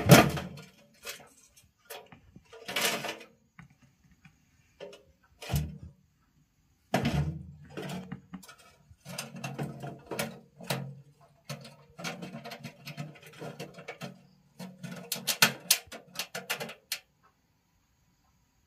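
Wire-mesh cage mouse trap rattling and clicking in irregular bouts as the trapped mouse scrambles about inside it. A sharp clatter at the start, then scattered knocks and a longer run of rattling in the second half, which stops near the end.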